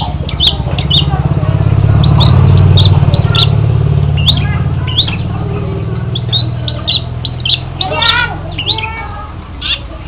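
Caged long-tailed shrike giving short, harsh squawks again and again, with a quick run of rising notes about eight seconds in. A steady low rumble lies underneath, swelling a couple of seconds in and dying away near the end.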